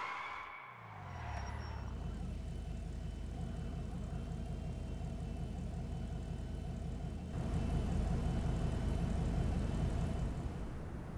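Car engine idling: its revs drop about a second in and settle into a steady, low idle. It gets louder about seven seconds in.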